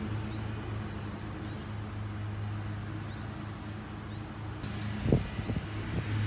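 Steady low motor hum, with one short thump about five seconds in.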